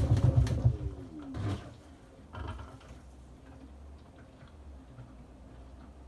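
A motor running and then shutting off: its pitch falls away over about a second and a half amid some clattering, leaving a low hum.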